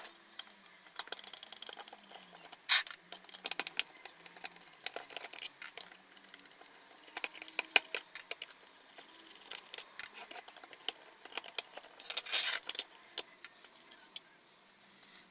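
Plastic clicks, taps and scraping from a cordless drill's 12 V Ni-Cd battery pack being handled and opened, with two louder scraping bursts, one about three seconds in and one near the end.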